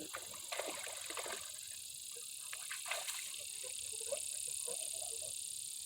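Insects chirring steadily in a high, even band, with scattered light clicks and rustles over it.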